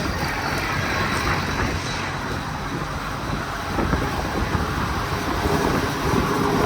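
Leaf blower running steadily, blowing chaff and dust off a combine, with strong wind on the microphone.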